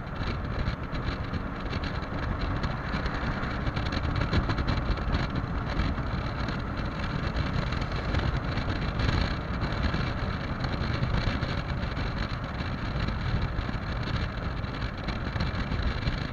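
Heavy wind rushing and buffeting over the microphone of a Yamaha XMAX 300 scooter ridden at speed, with the scooter's engine and road noise underneath. The rush holds steady throughout.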